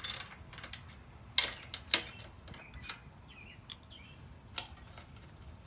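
Ratchet wrench loosening a grille-mounting bolt: a handful of sharp, irregularly spaced clicks and knocks, the loudest about a second and a half and two seconds in.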